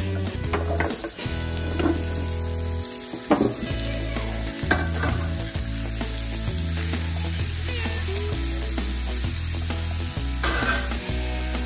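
Butternut squash cubes dropping into hot oil in a cast-iron pan and sizzling, with knocks as the cubes and a slotted spoon hit the pan; the sharpest knocks come about three and five seconds in. Background music with a low bass line plays underneath.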